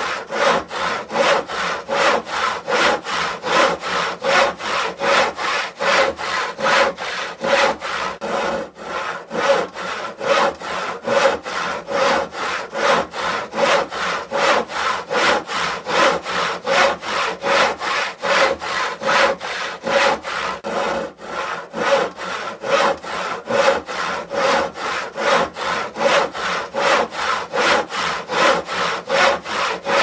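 Handsaw cutting through wood in steady, even back-and-forth strokes, about two to three a second, without a pause.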